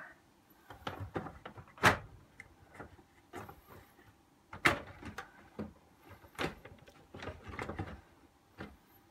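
Handling sounds from a radio-cassette player's plastic housing being fitted back together: a run of sharp plastic knocks and clicks, the loudest about two seconds in and more near five and six and a half seconds, with cloth rustling close to the microphone between them.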